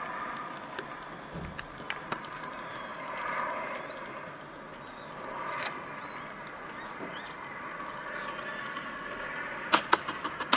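Large fire from a derailed freight train burning, heard from a distance as a steady rush, with a quick run of about five sharp cracks near the end.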